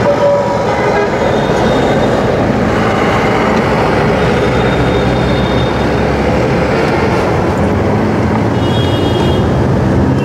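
City street traffic: a steady mix of vehicle engines and road noise, with vehicle horns sounding several times, most clearly about a second before the end.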